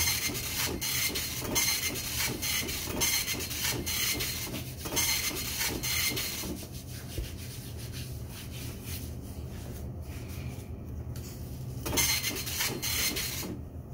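Argo cornstarch being chewed close to the microphone: a rhythmic, gritty crunching of about three chews a second, easing off in the middle and picking up again near the end.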